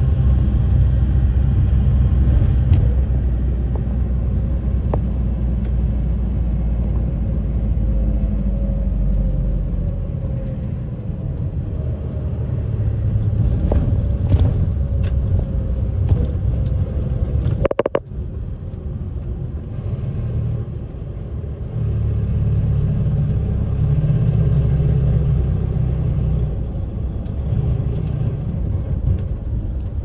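A route bus running, heard from inside the cabin: steady low engine and road rumble. Through the middle a whine slowly falls in pitch, then the sound breaks off sharply for an instant a little past halfway, and the low rumble builds again afterwards.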